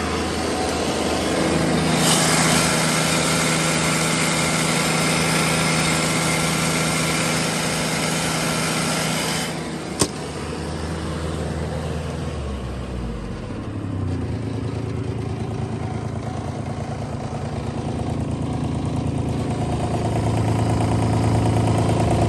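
A Bobcat 322 mini excavator's three-cylinder Kubota diesel runs at raised revs soon after a cold start, then is throttled back and its pitch drops to idle about twelve seconds in. A single sharp click comes just before the revs fall. The engine picks up slightly again near the end.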